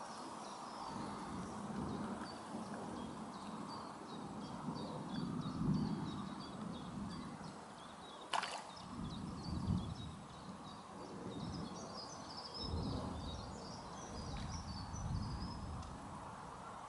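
Water sloshing around legs as an angler wades a shallow river, in low swells every few seconds. A single sharp swish comes about eight seconds in, over continual high chirping.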